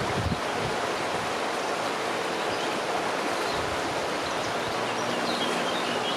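Steady rush of flowing river water, with a few low buffets of wind on the microphone at the start.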